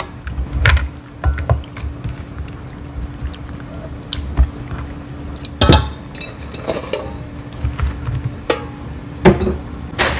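Kitchen prep knocks and clinks: a chef's knife cutting squid on a plastic cutting board, then a stainless steel bowl lifted and set down with a few sharp clinks, over a steady low hum.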